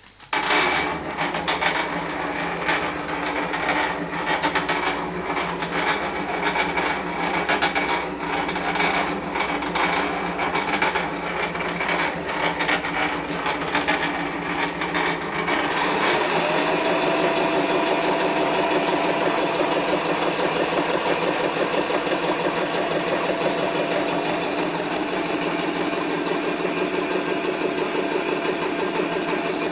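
Opti D240x500 DC Vario benchtop metal lathe with a variable-speed DC motor starting up and running, with a rattling mechanical clatter. About halfway through, a whine rises in pitch and then holds, and the running settles into a steadier, more even rhythm as the speed changes.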